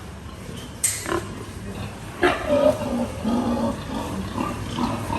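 Pigs grunting in a run of short calls from about two seconds in, after two sharp knocks about a second in.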